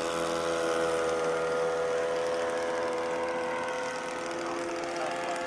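The four-stroke OS .48 glow engine of an RC model airplane running steadily in flight, holding an even pitch.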